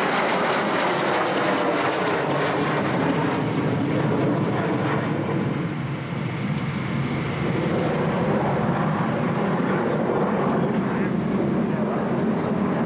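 Two Sukhoi Su-27 jet fighters flying a close formation pass: steady, loud jet engine noise with a brief dip about six seconds in.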